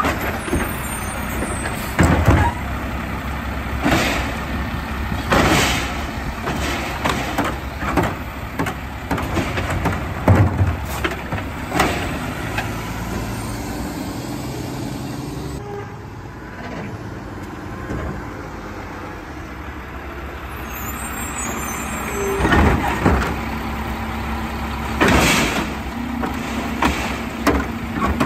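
Mack garbage truck with an automated side-loader arm: the diesel engine runs steadily under repeated air-brake hisses and clanks as the hydraulic arm grabs, lifts and dumps a wheeled trash cart. There is a quieter stretch about two-thirds of the way through.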